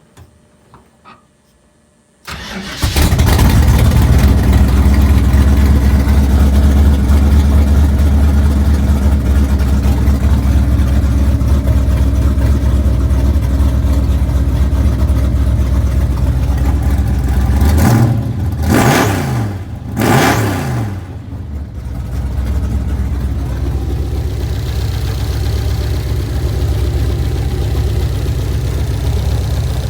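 Fuel-injected Ford 460 big-block V8, bored to 466, with fender-well exit headers, starting about two seconds in and running at a steady, loud idle. About two-thirds of the way through it is revved twice in quick succession, then it settles back to a somewhat quieter idle.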